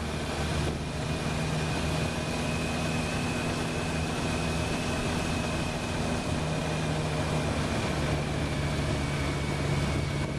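Motorcycle engine running steadily at low speed, with a thin steady high whine above it.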